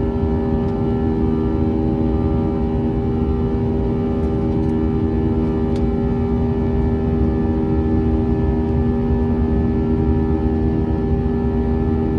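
Steady jet engine drone inside an Airbus A320's cabin: a low rumble with several steady hum tones over it.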